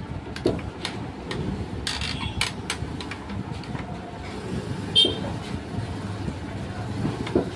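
Screws being taken out of a sewing-machine servo motor's box with a screwdriver: light clicks and taps, then a sharper metallic clink about five seconds in, over a steady low background rumble.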